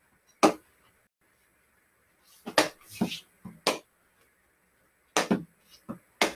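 Hockey stick blade knocking a small ball: a handful of sharp knocks at irregular intervals, several in quick pairs, as the ball is caught and tapped down with the stick.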